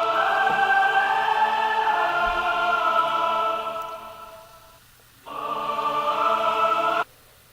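Choral music with long held voices. It fades away around the middle, comes back in suddenly a little after five seconds, and cuts off abruptly near the end.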